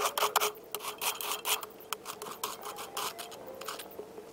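Steel shovel blade scraping and digging into gravel and soil, a quick run of short, irregular scrapes that thin out in the second half.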